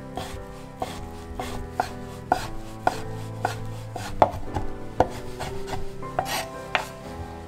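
A chef's knife chopping ham on a wooden cutting board, with repeated sharp strikes of the blade against the board as the ham is diced into small cubes.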